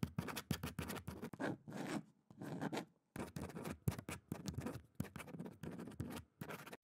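Hand-lettering on black paper: a run of short scratchy writing strokes, one after another, with brief pauses between letters.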